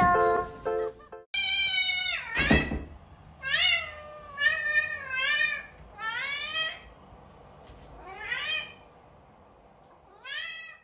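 Long-haired domestic cat meowing again and again, about eight drawn-out meows that bend up and down in pitch, growing fainter toward the end. The first second holds the tail of plucked ukulele music.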